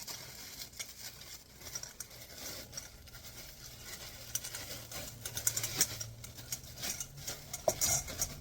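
A plastic bag crinkling and rustling in irregular crackles as it is handled and wrapped around a container.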